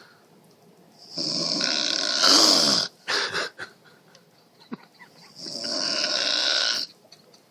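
A woman snoring loudly: two long rasping snores about four seconds apart, the first rising to a louder end that falls in pitch. A few short sharp sounds follow it.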